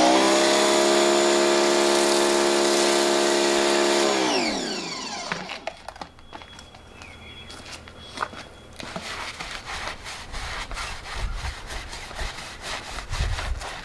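Electric pressure washer motor running with a steady whine as it sprays foam through a foam cannon onto a tire, winding down about four seconds in. Later a hand brush scrubs the foamed tire in quick, repeated strokes.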